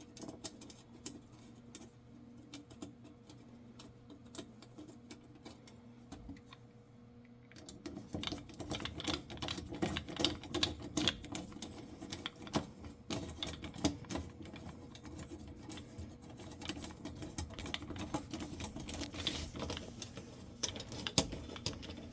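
Light, rapid clicking and rattling of screws and a hand tool on sheet metal as the oven igniter's mounting screws are fastened by hand. The clicking grows louder and busier about eight seconds in.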